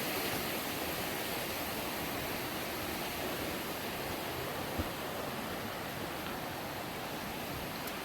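Steady rushing of a river running high over rocks and rapids, swollen after heavy rain.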